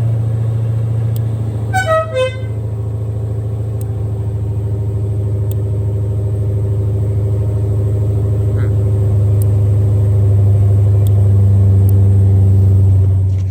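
The Dixie air-horn kit's 12-volt compressor running, a steady low electric hum, the moment its positive wire is connected. A short falling squeak comes about two seconds in, and the hum cuts off suddenly at the end.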